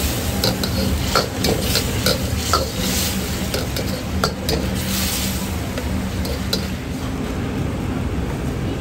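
Sauce and meat sizzling in a hot wok while a metal ladle stirs and scrapes against it, with scattered sharp clinks of the ladle on the metal.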